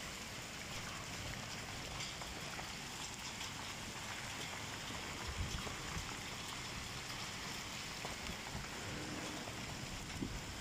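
Heavy rain pouring down steadily onto a wet tiled rooftop and a flooded field.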